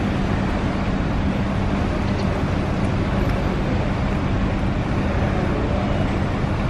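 Steady outdoor urban background noise: a constant even rumble and hiss with a low steady hum running under it.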